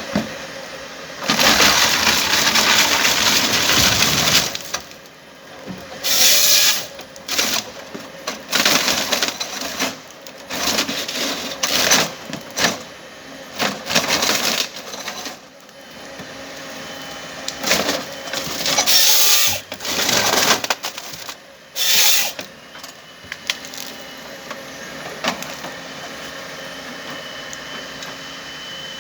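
Komatsu 931XC harvester's C144 head processing a tree: wood cracking and branches snapping in irregular loud bursts, with a faint machine hum between them.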